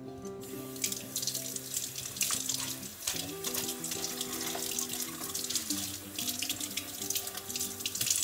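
Water running from a kitchen tap into a sink, a splashy hiss that starts about half a second in and cuts off near the end, over background music.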